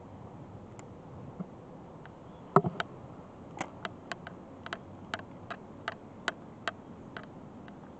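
Spinning fishing reel clicking: a sharp clunk about two and a half seconds in, then a run of single clicks, two or three a second, over a steady hiss.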